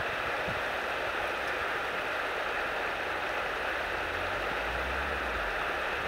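Steady rush of running water, with a low rumble coming in over the last two seconds.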